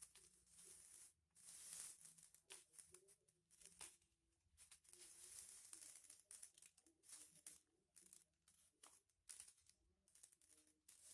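Faint crinkling and rustling of aluminium-foil-covered paper being folded and creased by hand, in short irregular bursts with occasional sharp crackles.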